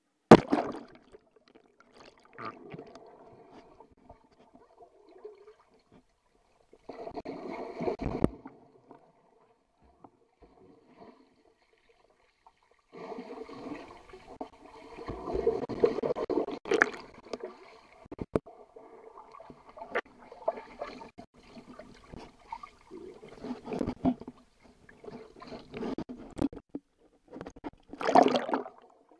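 Pool water splashing and gurgling, heard muffled through a waterproof camera housing as it moves underwater and back out. It comes in irregular bursts with quiet gaps, with a sharp splash right at the start and another loud burst near the end.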